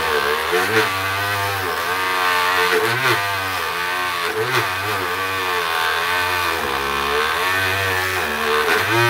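Small handheld rotary tool (Dremel-type) running with a wire brush, scrubbing corrosion off a radio's battery contact. The motor's pitch wavers and dips as the brush bears on the contact and eases off.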